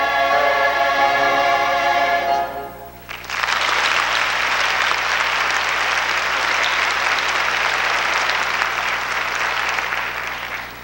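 A show choir holds a final sung chord that cuts off about two and a half seconds in, then an audience applauds steadily, the applause fading near the end.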